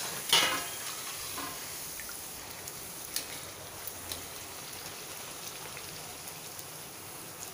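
Hot oil sizzling steadily as a thin flour disc (kadakani) deep-fries in a steel kadhai. A sharp clink about a third of a second in and a few lighter ticks later come from the steel slotted spoon pressing and turning the disc against the pan.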